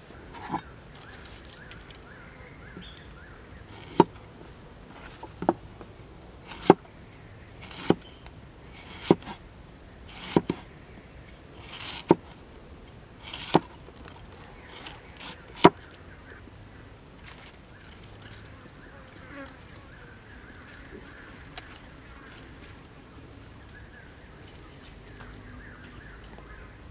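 Insects buzzing, with a thin steady high whine coming and going. Over it, about ten sharp knocks sound at a loose pace of roughly one every second and a quarter, then stop at about two-thirds of the way through.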